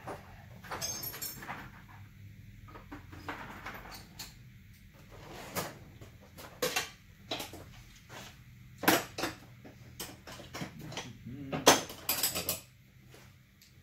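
Metal hand tools clinking and clanking in a toolbox drawer as someone rummages for a ratchet, a scatter of sharp knocks with a brief jingle about a second in and the loudest clanks near the end.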